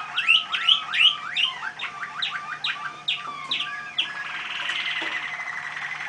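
Caged songbird singing: a quick run of repeated swooping whistled notes, then a fast, even rolling trill from about four seconds in.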